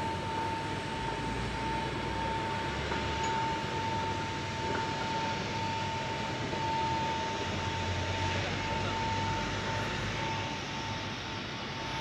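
Screw conveyor running empty: the steel auger turns in its bare trough, driven by an electric motor through a shaft coupling. The result is a steady mechanical hum with a constant high whine throughout.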